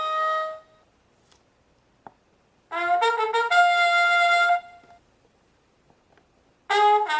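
Toy castle base playing short bursts of an electronic tune, set off by a figure placed on it. There are three bursts of about two seconds each, with pauses between them. The figure unlocks only this song, not spoken phrases.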